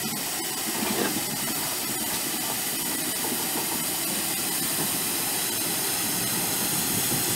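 Steady hiss of steam from a GWR 6400-class 0-6-0 pannier tank steam locomotive, No. 6412, as it drifts slowly along the platform, with a low rumble beneath.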